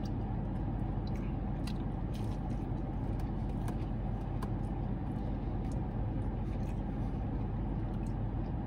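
A man chewing a mouthful of crispy fried chicken tender, with short crunches and wet mouth clicks scattered through, over a steady low hum inside a car cabin.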